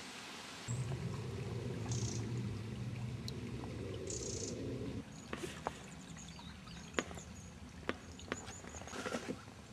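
A low rumble lasting about four seconds that cuts off suddenly, then scattered sharp clicks and light knocks with water trickling, from paddling an inflatable canoe.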